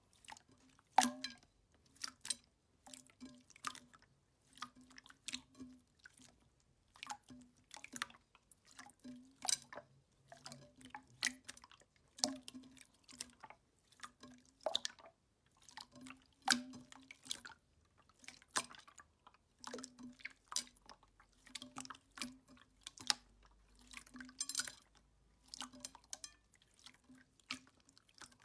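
Clear slime being pressed, poked and squeezed by hand: an irregular string of short, wet pops and squelches, about one or two a second.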